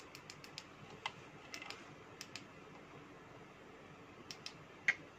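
Faint, scattered clicks and light taps from a USB LED ring light with a phone holder being handled and adjusted, with one sharper click near the end.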